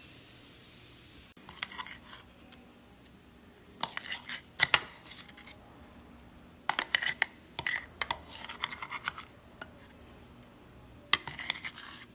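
A spoon scraping and knocking against the inside of a stainless-steel mixer-grinder jar as ground beetroot paste is scooped out, in several short clusters of sharp clicks and scrapes. A steady hiss cuts off about a second in.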